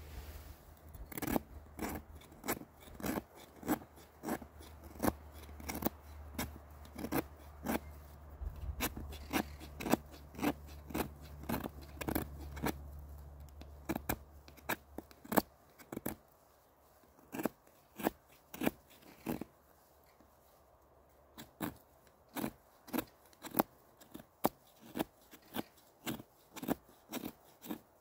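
Morakniv knife blade shaving curls off a small stick: a series of short, sharp scraping strokes, about one or two a second, with a couple of brief pauses.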